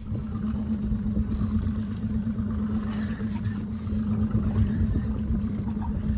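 Boat motor running with a steady hum, along with a low, gusty rumble of wind on the microphone; it cuts in abruptly at the start.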